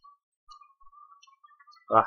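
Faint ticks and light scratching of a stylus writing on a tablet, over a thin, faint, wavering tone that comes and goes. A man's voice starts just before the end.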